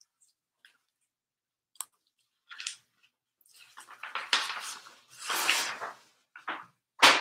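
Painting supplies being handled close by: a single click, then several short bursts of rustling and scraping, with a sharper, louder one near the end.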